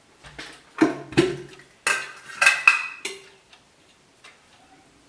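Metal kitchen utensils clinking and clattering: a cluster of knocks about a second in, then a run of sharper clinks with a brief metallic ring between about two and three seconds in.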